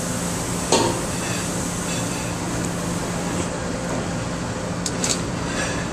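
Steady hum of commercial kitchen ventilation. A few sharp clinks of pots and utensils come through it: one just under a second in, a softer one about two seconds in, and two or three close together near the end.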